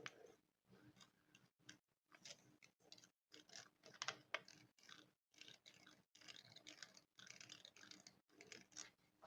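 A metal spoon scratching directly on a microphone in quiet, close-up strokes: a string of short scratchy bursts broken by brief silent gaps.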